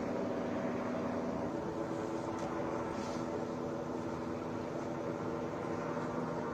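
Steady hum of idling vehicle engines, a low drone with a few held tones that shift slightly about a second and a half in.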